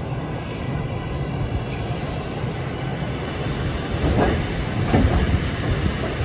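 Carriage of a steam-hauled suburban train rolling slowly through a station, heard from a carriage window: a steady low rumble of the wheels on the track, with two louder clunks about four and five seconds in.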